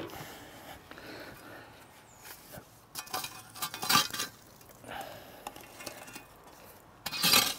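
Metal shovel scooping hot campfire coals and tipping them onto the lid of a cast-iron camp oven. Scattered scrapes and clinks of coals against metal, with a louder burst of scraping near the end.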